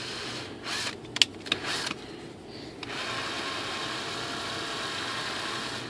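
Cordless drill/driver running at low speed, driving a small screw into a plastic glider tail part. It runs briefly, stops for a few clicks and taps about a second in, then runs steadily again from about three seconds in.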